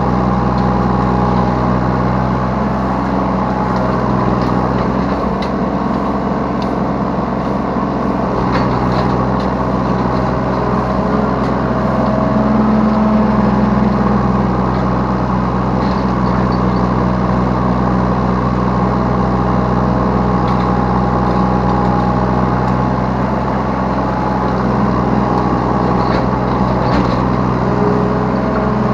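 Yanmar B3 Sigma 3-ton mini excavator's diesel engine running steadily while it digs and loads, heard from the operator's seat, its note swelling slightly a couple of times as the hydraulics take load.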